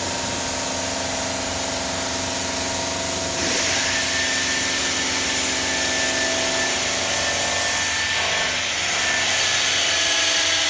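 Denver 5-axis CNC bridge saw running, its blade cutting black granite under water spray: a steady machine hum with a hiss of water. About three and a half seconds in, the hiss grows louder and a thin high whine starts, fading away near the end.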